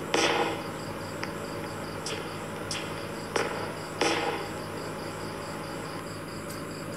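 Insect-like chirping in a steady, rapid pulse over a low hum, broken by a handful of sharp swishing clicks in the first four seconds.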